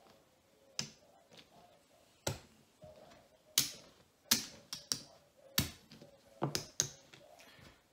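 Poker chips clicking together as they are counted and set down in stacks: about a dozen sharp clacks at an uneven pace.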